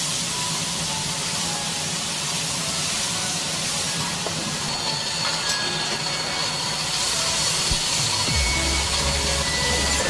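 Steady hissing from a gas-fired griddle with batter cooking on it.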